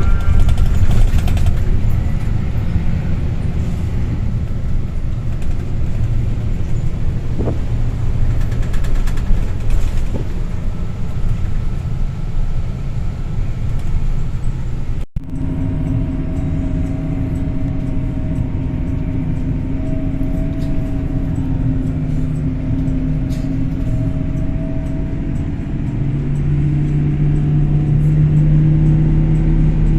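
A motor vehicle's engine and road rumble running steadily. The sound breaks off for a moment about halfway; after that a steady engine hum comes through, rising in pitch near the end.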